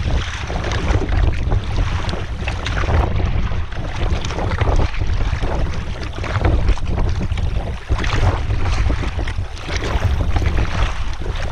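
Wind buffeting a GoPro microphone on a canoe, a heavy steady rumble, over repeated splashing and slapping of water along the hull as the paddler takes strokes on the right side against choppy waves.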